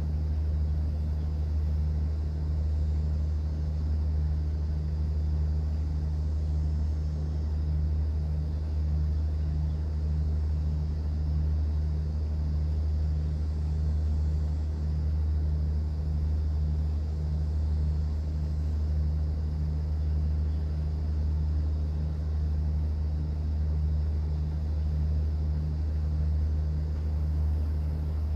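Cruise boat's engine running steadily: a constant low drone with a faint regular pulsing, over a soft wash of water.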